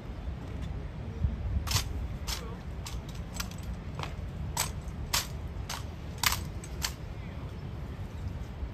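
Honor guards' metal-tipped boots striking stone slabs in a steady marching cadence: about ten sharp clicks a little over half a second apart, starting a couple of seconds in and stopping about two seconds before the end, over a low outdoor rumble.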